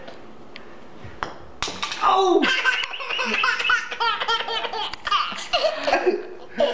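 A baby laughing hysterically: a long run of high-pitched laughs, one after another, starting about two seconds in and going on for several seconds.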